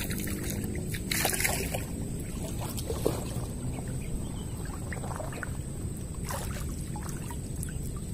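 River water sloshing and splashing around a wading angler as he lands a small fish on a short rod, with a louder splash about a second in, over a steady low rumble.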